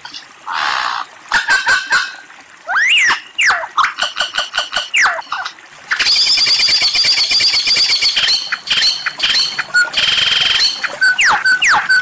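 Lyrebird singing a varied medley of calls, typical of its mimicry. A rough rasping note comes first, then rising-and-falling whistles and a long fast chattering trill in the middle, and near the end a quick series of sharp falling whistles.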